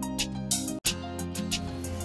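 Background music with a steady beat and held tones, cutting out for an instant a little under a second in.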